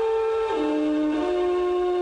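Instrumental music: a single wind-instrument melody of long held notes, stepping down to a lower note about half a second in and back up a little after a second.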